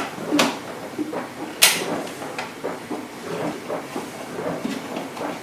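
Hands and a screwdriver working on the range hood's control box housing: a sharp click about half a second in and a louder, scraping knock at about a second and a half, then quieter irregular scraping and handling noise.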